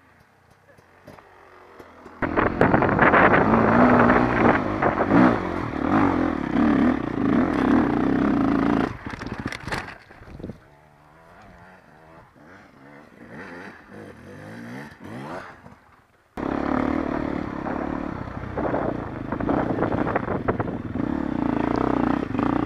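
Dirt bike engines revving and running on a trail ride. The engine sound comes in loud about two seconds in and wavers with the throttle, drops away through the middle, then cuts back in suddenly near the end.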